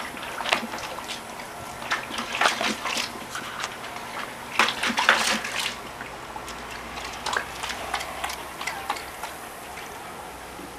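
Collies lapping water from a water bowl: irregular runs of quick, splashy laps, busiest about two and five seconds in.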